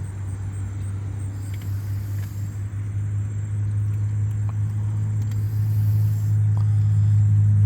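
A steady low engine-like hum, growing louder toward the end, with a few faint ticks over it.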